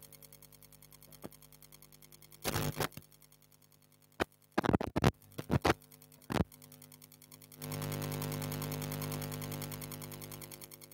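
Steady electrical hum through a hall's sound system, broken by a handful of sharp clicks and knocks in the middle, then a few seconds of louder rushing noise that fades near the end.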